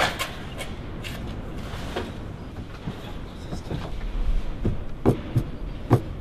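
Low background room noise with a faint hum, broken by a few scattered soft knocks and clicks. The clearest two come about five and six seconds in.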